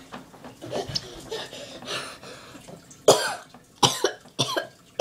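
A boy coughing three times in quick succession, starting about three seconds in.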